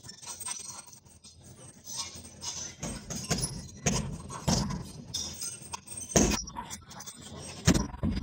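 Punches landing on a hanging heavy bag: irregular thuds, the two hardest in the second half, with the bag's support chains jangling.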